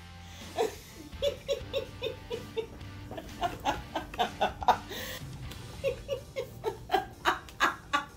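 A woman laughing hard in several runs of short, quick bursts, over background music.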